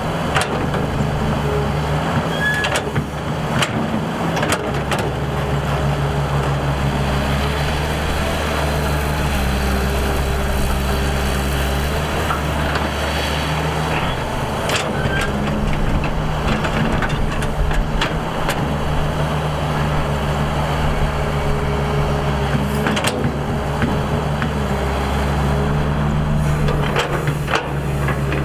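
Excavator's diesel engine running steadily under working load, with a few short knocks scattered through.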